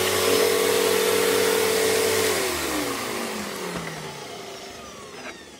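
Panasonic MCE468 upright vacuum cleaner's motor running smoothly, then switched off about two seconds in and winding down with a falling whine that fades away.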